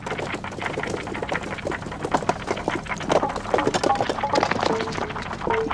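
Dense clatter of many small hard blocks knocking together and tumbling, a sound effect laid over the animation. It grows louder and busier about two seconds in, with short pitched clacks among the knocks.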